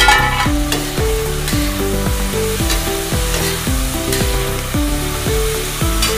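Chopped vegetables sizzling in hot oil in an iron kadhai on a high flame, stirred with a metal spatula that scrapes against the pan a few times. Background music with a steady beat and a repeating melody plays throughout.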